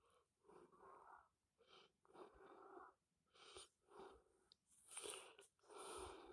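Tabby cat purring close to the microphone: a soft rasping purr that swells and breaks off in short phases of about half a second, with brief gaps as the cat breathes in and out.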